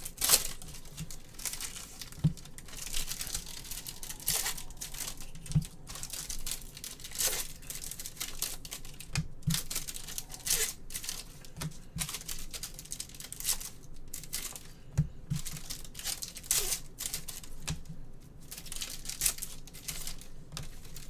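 Quiet handling noise at a table: irregular crinkling and rustling with scattered light taps and clicks.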